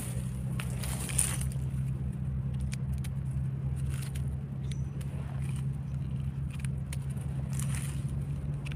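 A steady low hum runs throughout, with faint crackles and rustles of dry leaf litter as mushrooms are picked by hand from the forest floor, and a sharper crackle about a second in.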